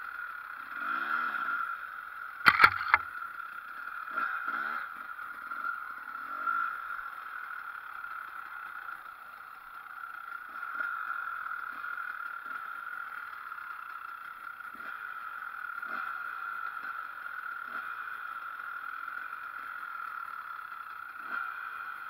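Enduro motorcycle engine ridden hard, its pitch rising and falling with the throttle, over a steady rushing noise. A few sharp knocks sound about two and a half seconds in.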